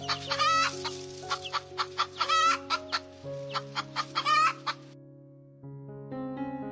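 Chickens clucking, with short calls and a few longer wavering cackles, over background piano music. The chicken calls stop about five seconds in and the music carries on alone.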